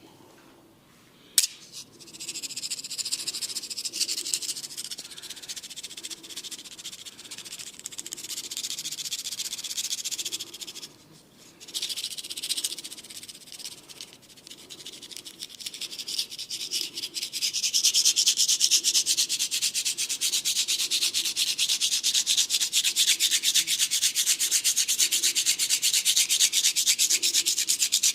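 Hands rubbing and scratching fast over a person's hair and skin during a massage: a dry, high hissing rub with very quick strokes, broken by a short pause near the middle and growing louder and faster after about eighteen seconds. A single sharp click comes about a second in.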